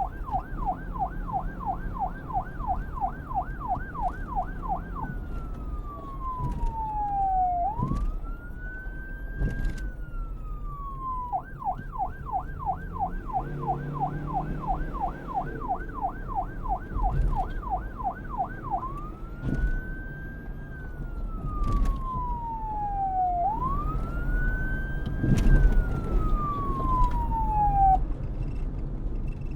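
Police car's electronic siren alternating between a yelp and a wail. It opens with a fast warble of about three cycles a second, then slow rising and falling sweeps, another stretch of warble in the middle, and more slow sweeps until it stops near the end. A low rumble runs underneath.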